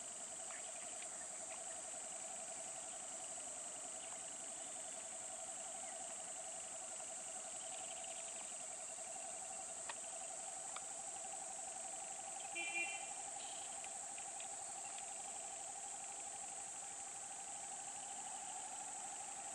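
A steady chorus of insects: a high hiss together with a lower, fast-pulsing trill that holds nearly one pitch and creeps slightly higher. About two-thirds of the way through there is one brief chirp.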